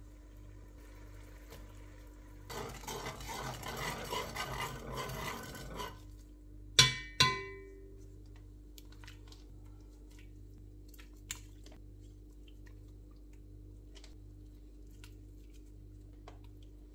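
Metal spoon stirring liquid in a stone-coated pot for a few seconds, then two sharp ringing clinks of the spoon tapped on the pot's rim, over a steady low hum.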